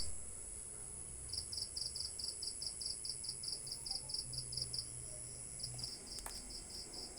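Insect chirping: a regular run of short high chirps, about five a second, that pauses briefly in the middle, over a steady high-pitched whine.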